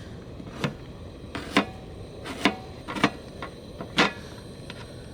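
Knife chopping garlic: about six sharp, short knocks, unevenly spaced, roughly a second apart.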